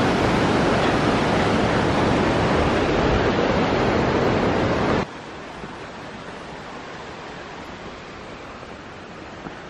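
Steady rushing of a mountain waterfall and stream, loud at first, then cutting off abruptly about five seconds in to a much quieter steady hiss.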